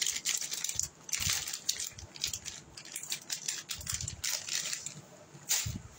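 Plastic packaging crinkling and rustling as it is handled, with items shuffled about in a cardboard box, in irregular bursts.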